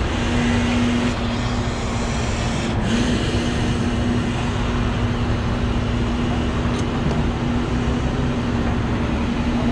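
Rotator tow truck's hydraulic system running under load as the boom or winch line is brought in: a steady whine held at one pitch over the noise of the running truck engine.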